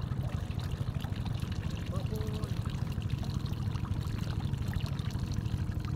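Water trickling and dripping off a wet cast net as it is gathered up by hand for a throw, over a steady low rumble.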